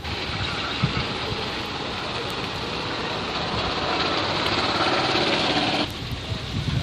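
Large truck engine running loud and rough, growing slightly louder, then cutting off abruptly about six seconds in.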